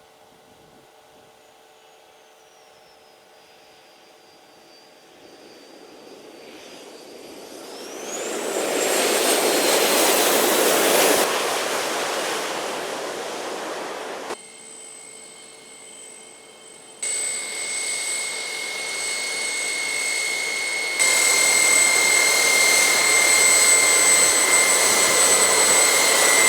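Jet aircraft engine noise in several spliced segments. A faint whine slides down, then rises steeply into a loud rushing noise. Later a steady high-pitched turbine whine sits over the rushing noise.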